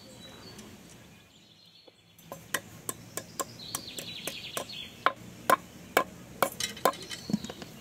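A run of sharp, light taps or knocks, irregular at about two a second, starting about two seconds in, like light hammering or tool work by hand. A short higher rasping sound comes about four seconds in.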